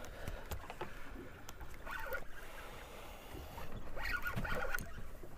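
Sounds on board a small fishing boat at sea: a steady low rumble, a few sharp clicks, and faint voices about two and four seconds in.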